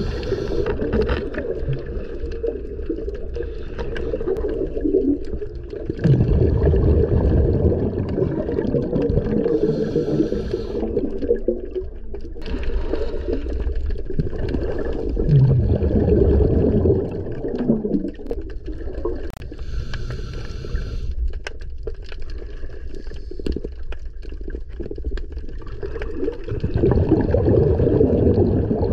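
Underwater sound of a scuba diver's breathing: low bubbling rumbles of exhaled air about every ten seconds, with short regulator hisses of inhalation in between, over steady water noise against the camera housing.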